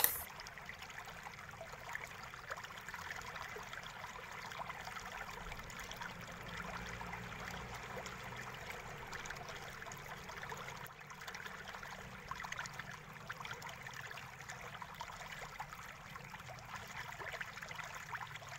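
Faint steady hiss with a quick patter of small clicks and handling noise from hands and a screwdriver removing screws from a laptop's plastic bottom case, in fast-forwarded footage.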